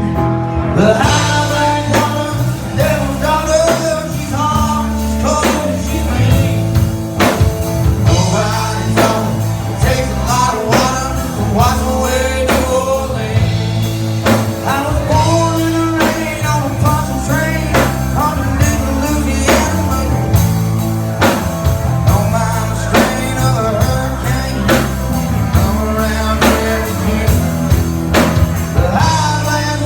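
Rock band playing an instrumental stretch of a blues-rock song, with guitar over bass and a steady drum beat.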